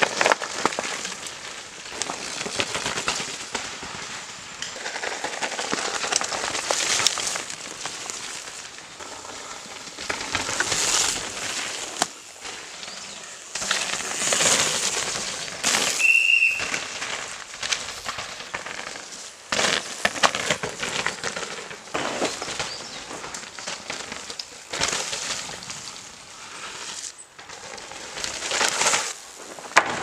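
Downhill mountain bikes passing one after another on a dirt trail: knobby tyres rushing and crackling over dirt and roots as the bikes rattle by, in a series of passes that cut off suddenly several times. A brief high squeal sounds about halfway through.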